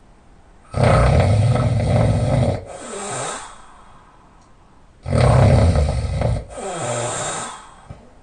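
A person snoring through an open mouth while lying on their back: two loud, rumbling snores about four seconds apart, each followed by a shorter, quieter breath.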